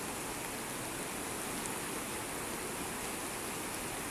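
Steady rushing of a river in flood, its fast brown water in full spate.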